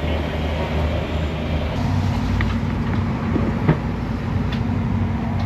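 Charter boat's engine running steadily, a low hum whose note shifts slightly about two seconds in, with a few faint knocks on board.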